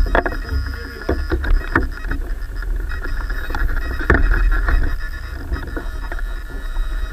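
Align T-Rex 700 DFC RC helicopter in flight, heard from its onboard camera: a steady high drivetrain whine over a deep rumble of rotor wash and wind buffeting the microphone, broken by short knocks.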